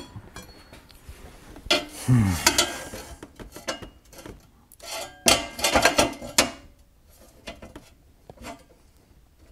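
Metal parts clanking and scraping against the steel frame of a golf cart's battery compartment as they are handled and set in place, in irregular bursts, loudest about two seconds in and again around five to six seconds in.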